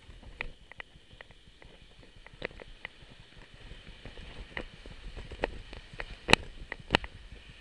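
Bicycle rattling as it rolls along a concrete sidewalk: a string of irregular clicks and knocks over a low rumble, with the two loudest knocks a little before the end.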